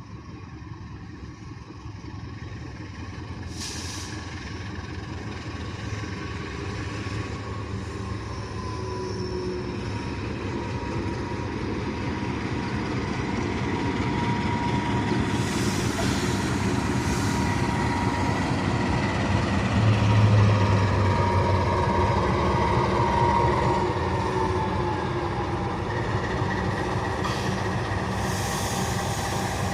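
A CC 206-class diesel-electric locomotive and its train approaching, the engine and running noise growing steadily louder, with a few brief high hisses.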